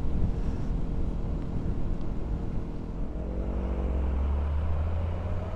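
KTM 125 Duke's single-cylinder four-stroke engine running, with tyre and road noise on a wet road. About three seconds in, the engine pitch rises and falls, and a deep engine drone from a lorry close alongside builds.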